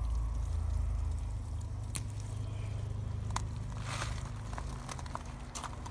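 Tomato plant stems and leaves rustling and crackling as a ripe tomato is pulled off by hand, with a few sharp snaps about two, three and a half and four seconds in. A low rumble on the phone's microphone runs underneath.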